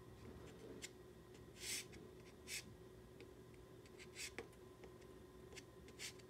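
Pastel stick rubbing across paper in four short, faint, scratchy strokes with a few light ticks between them.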